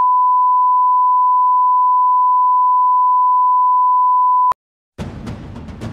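Steady 1 kHz line-up test tone of the kind that goes with colour bars, cutting off with a click about four and a half seconds in. After a brief silence, music with drum hits starts near the end.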